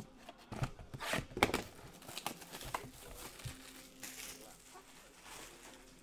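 Trading-card pack wrappers being crinkled and torn open by hand, in scattered short bursts.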